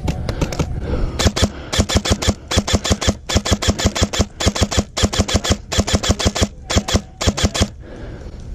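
A PhatCo Customs airsoft rifle fires full-auto in several rapid bursts, about ten shots a second, with short pauses between bursts. The firing starts a little over a second in and stops near the end.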